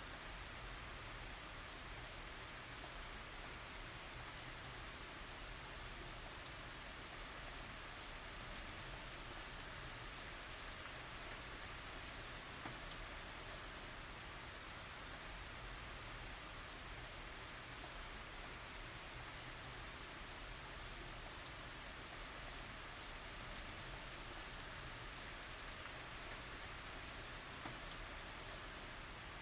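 Steady tropical rain falling, an even hiss with fine drop ticks and a low rumble underneath, no thunder.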